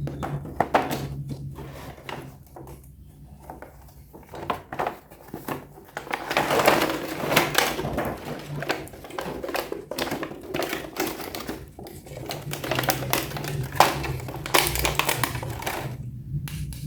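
Irregular clicking and clattering of small hard plastic toy parts being handled, over a steady low hum.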